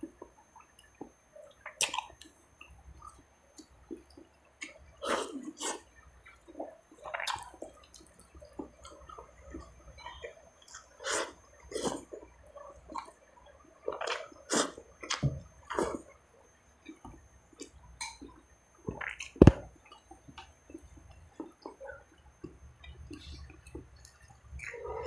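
Close-up eating sounds: wet chewing, lip smacks and slurps from a man eating rice, beef ribs and camote leaves by hand, in short irregular bursts. One sharp click stands out a little past three quarters of the way through.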